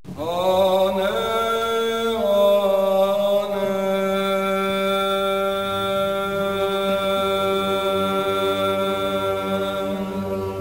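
Serbian Orthodox liturgical chant: unaccompanied voices holding one long sung note over a steady low note, the pitch stepping up twice in the first two seconds before settling.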